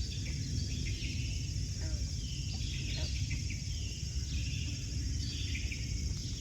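Chorus of small frogs giving many short, overlapping high-pitched chirping calls, over a steady low rumble.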